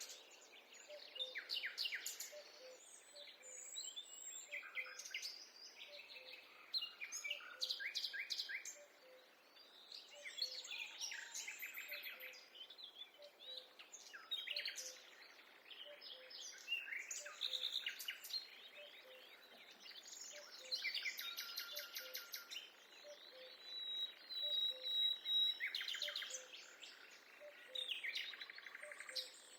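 Several songbirds singing and calling in a forest, with overlapping chirps, trills and rapid note series from different birds. Beneath them a faint low note repeats about once a second.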